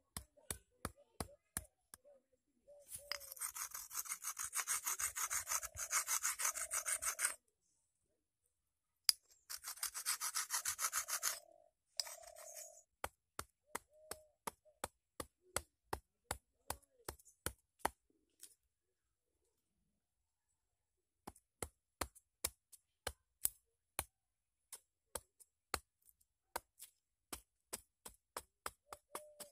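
A sharp-edged stone scraped hard along a green bamboo stalk, shredding its fibres: two stretches of rasping scraping, the first about three seconds in and lasting some four seconds, the second shorter, a few seconds later.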